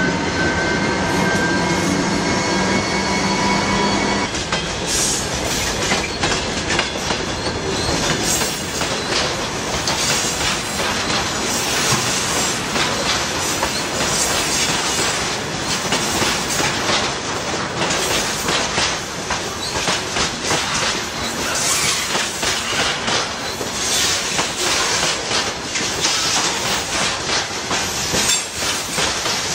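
Loaded freight train of tank wagons rolling past close by: wheels clattering over the rail joints, with rattling and squealing from the cars. A steady whine of several pitches is heard for the first four seconds and stops abruptly.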